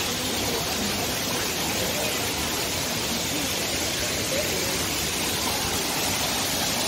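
Steady rush of a tall waterfall and its stream, with faint voices of people.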